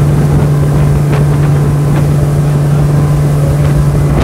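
Single 250 hp V8 outboard motor pushing an aluminium boat at about 38 mph: a steady, loud low drone over the rush of water against the hull.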